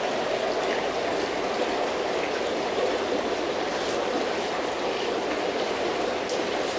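Water in a large aquarium running and splashing steadily, an even rush with a few faint ticks.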